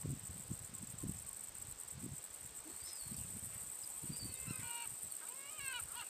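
Gulls calling: a few short calls from about three seconds in, then a quick run of yelping calls near the end. Under them, low gusts of wind on the microphone and a steady high hiss.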